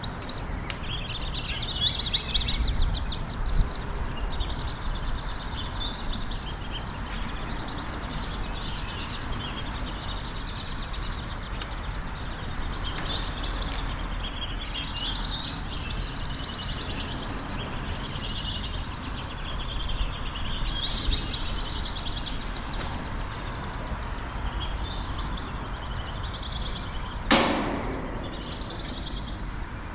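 Birds chirping and calling repeatedly over a steady low outdoor rumble, with one short, loud sound that sweeps down in pitch about 27 seconds in.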